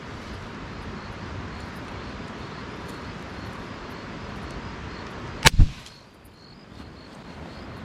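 A percussion cap fired on the empty cylinder of a cap-and-ball revolver sets off a pile of loose black powder in a fire lay: about five and a half seconds in, two sharp cracks in quick succession as the powder flashes up, a bigger puff than expected, lighting the kindling.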